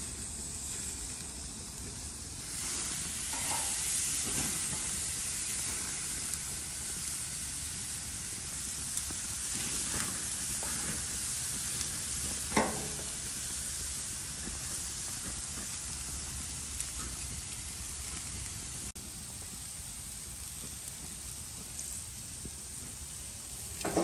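Steaks sizzling steadily as they sear in melted butter in a hot pan, with a few light utensil knocks, the loudest about halfway through.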